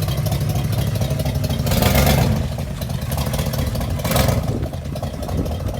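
Holden 253 V8 engine running, with two brief louder surges, about two seconds in and again about four seconds in.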